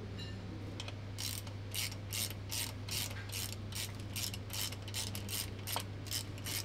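Socket ratchet wrench clicking in quick, regular strokes, about two to three a second, tightening the mounting bolts of a new starter motor on the engine block.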